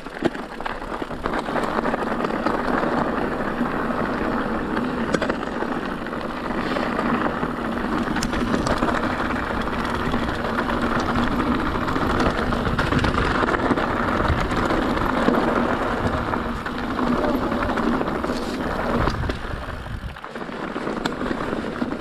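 Mountain bike rolling along a dirt trail: a steady rushing noise of tyres over loose ground with a low rumble beneath, easing off about twenty seconds in.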